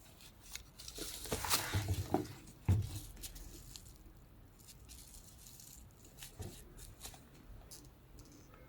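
Hands unpacking a handbag: a burst of rustling and rattling packaging about a second in, a soft thump near the three-second mark, then light clicks and handling noises.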